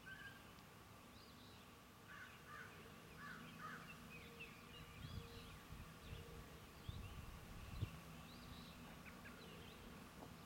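Faint chorus of several birds chirping and calling in quick, scattered notes, over a low steady hum.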